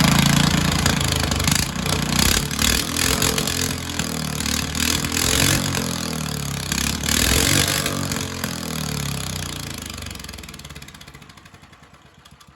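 Mini bike's DuroMax 16 hp single-cylinder engine, ungoverned with its drive belt off, running and being revved up and down several times, then losing speed and dying near the end. The owner suspects it has run out of gas.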